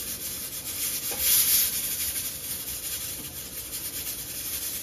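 Metal spoon stirring and scraping through black-eyed peas and rice in a large aluminium pot, a continuous scratchy rubbing that gets loudest about a second and a half in.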